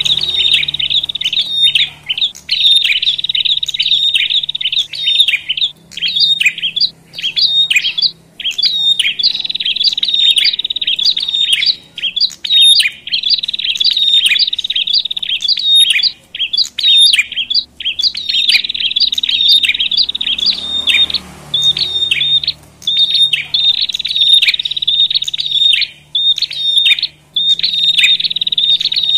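Prenjak, small warbler-like songbirds, chattering noisily in a fast, almost unbroken stream of high, scratchy notes with a few brief pauses. It is the agitated 'ribut' calling used as a lure to excite other prenjak.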